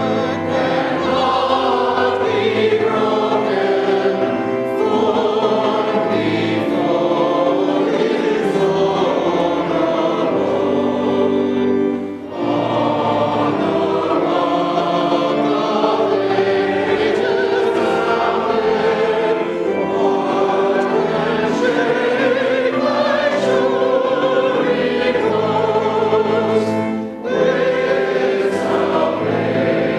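Choir singing sustained, slow phrases, with brief breaks between phrases about 12 and 27 seconds in.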